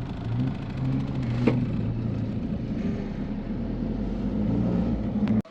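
Truck engine running on the move, a steady low drone whose note shifts a little. There is a single sharp click about a second and a half in, and the sound cuts off abruptly just before the end.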